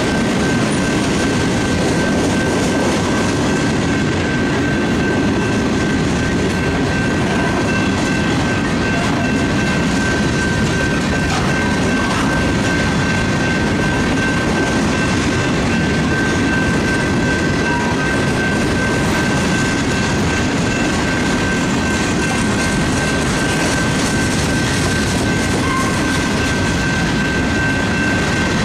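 Union Pacific freight train's covered hopper cars rolling past a grade crossing: a steady rumble and clatter of wheels on rail, with a steady high tone over it.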